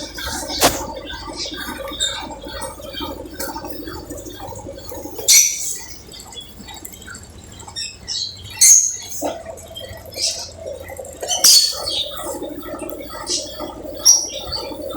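Brastemp Ative 11 kg BWL11 washing machine running its spin program: a steady motor hum that stops about five seconds in and resumes about four seconds later. Short, high chirps come repeatedly over it and are the loudest sounds.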